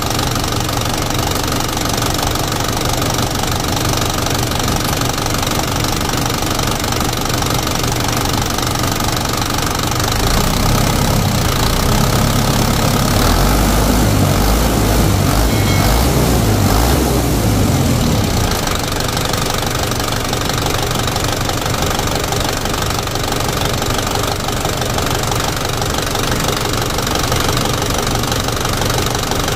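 Toyota Dyna diesel engine idling with a knocking diesel clatter while its inline injection pump is being adjusted. From about ten seconds in it runs heavier and a little louder for several seconds, then settles back to its steady idle.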